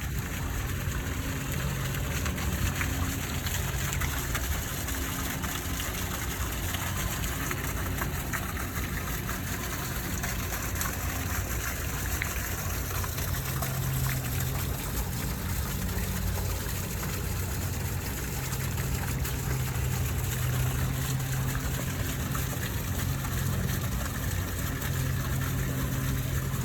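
Steady splash and rush of water from a garden fountain, with a low hum that swells and fades beneath it.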